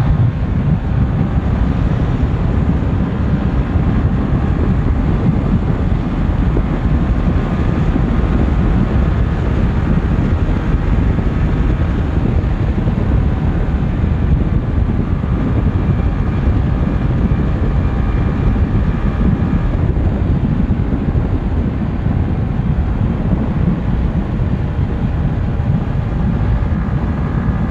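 Heavy wind buffeting the microphone of a motorcycle ridden flat out at speed, with the engine held at high revs as a faint steady whine beneath it.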